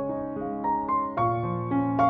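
Gentle background piano music: a slow melody of sustained notes over a held bass, the bass moving to a new note about a second in.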